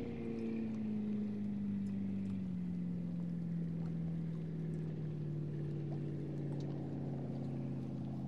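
A low, steady droning sound made of several tones, the main one slowly falling in pitch.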